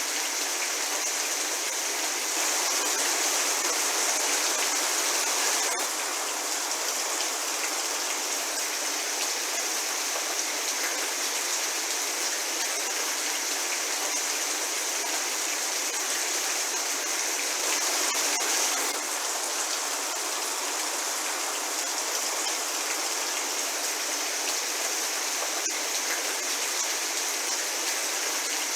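Medium rain falling steadily, an even hiss with a few sharper drop ticks. It swells slightly louder a few seconds in and again about two-thirds of the way through.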